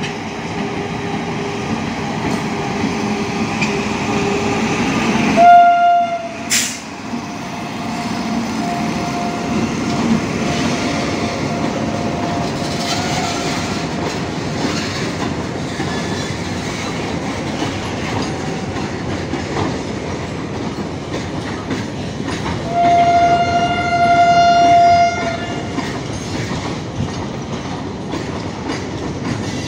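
Freight train of tank wagons rolling past, a steady run of wheel and wagon noise with clickety-clack over the rail joints. A locomotive horn sounds twice: a short loud blast about five seconds in, and a longer blast of about three seconds starting around twenty-three seconds in.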